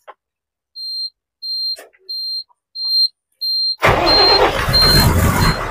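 Truck's dashboard warning buzzer beeping with the ignition on, high short beeps about every two-thirds of a second, then the diesel truck engine is cranked and fires up about four seconds in, running loudly before settling toward idle near the end as the beeps carry on more faintly.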